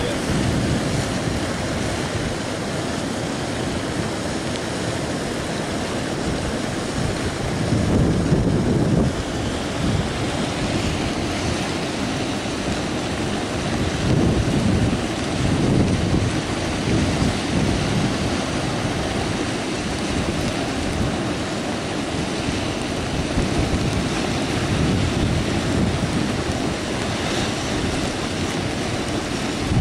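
Steady rushing roar of a muddy river in flood, with gusts of wind buffeting the microphone every few seconds.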